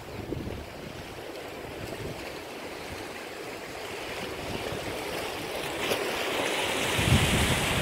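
Sea water washing against shoreline rocks, a steady hiss of surf that swells toward the end, with wind rumbling on the microphone in the last second.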